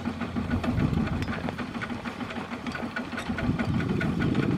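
Single-cylinder diesel engine of a two-wheel walking tractor running with a steady knocking beat. It is working under load as the tractor, hauling a loaded trailer, struggles in a muddy rut, and it grows louder near the end.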